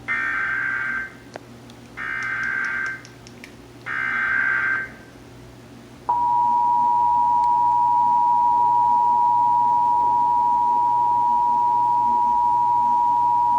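Emergency Alert System SAME data header: three short bursts of shrill data-tone screech about two seconds apart. About six seconds in, the EAS two-tone attention signal (853 and 960 Hz sounded together) starts and holds steady.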